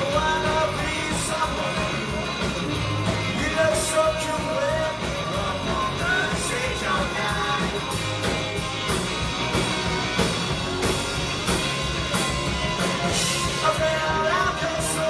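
Live rock band playing electric guitars and drums, cymbals crashing at intervals.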